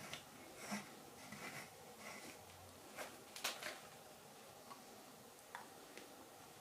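Carving knife slicing green wild cherry wood: faint, irregular short shaving strokes and clicks of the blade cutting, the sharpest about three and a half seconds in.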